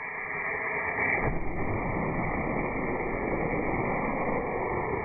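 Steady, muffled hiss of noise like radio static, with no tone or rhythm in it.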